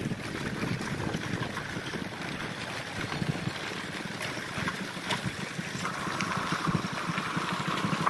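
Vehicle riding along a rough dirt-and-gravel track: steady engine and road noise with wind buffeting the microphone.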